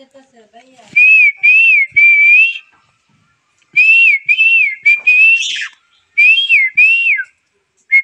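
Loud whistled notes, each rising then falling in pitch, in three short runs of two to four notes.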